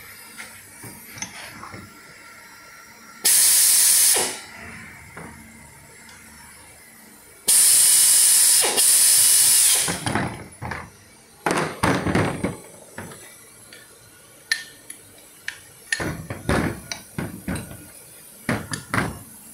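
Two loud hissing blasts of air, one about a second long three seconds in and one about two seconds long midway. They are followed by a run of sharp metallic clinks and knocks from the metal parts of a universal puller being handled and fitted together.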